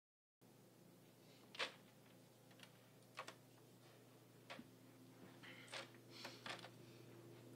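Near silence: quiet room tone with a steady low hum and a few faint clicks and rustles, the clearest about a second and a half in.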